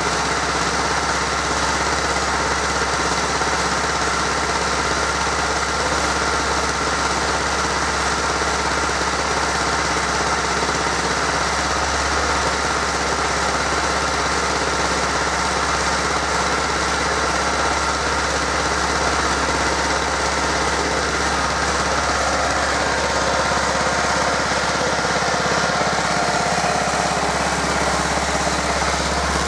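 Stothert and Pitt W28 Mk 1 roller's engine running steadily on a bench test with the roller up on blocks, driving its belt and roller drum.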